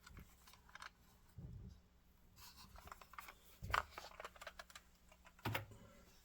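Small clicks, taps and scrapes of HO scale model railroad cars being handled on a table, with two sharper knocks, one in the middle and a louder one near the end.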